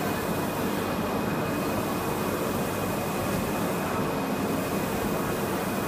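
Wide-format UV roll printer running: a steady mechanical whir as the print-head carriage sweeps back and forth across the media, with a thin steady high tone.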